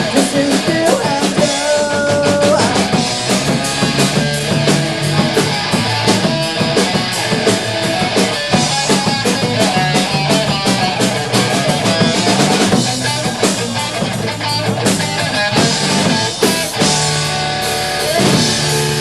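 Punk rock band playing live: guitar and a fast, steady drum kit beat, with no singing.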